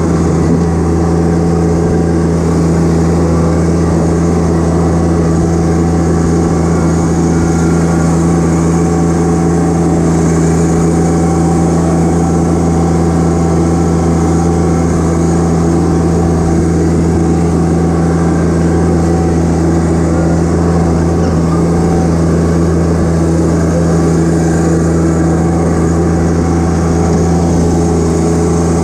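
John Deere 1025R compact tractor's three-cylinder diesel engine running at a steady speed as the tractor drives, heard from the operator's seat.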